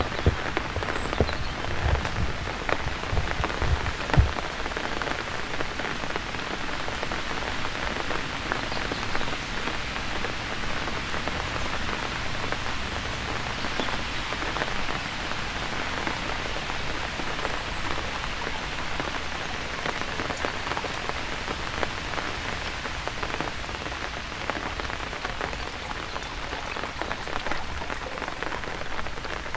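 Steady rain, a dense patter of drops hitting wet surfaces, with a few louder low thumps in the first few seconds.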